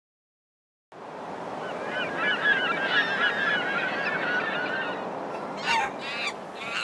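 A flock of birds calling, many short chattering calls overlapping over a steady background noise, starting about a second in. Near the end come two louder, sharper calls that fall in pitch.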